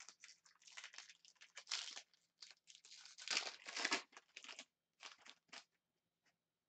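Hockey card pack wrapper crinkling as it is torn open and pulled off the cards, in quick irregular rustles that are loudest in the middle and stop near the end.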